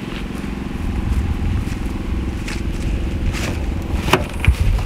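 A steady low rumble and hum, with a few scattered knocks and clicks in the second half, as the wooden pieces of the bed frame are handled.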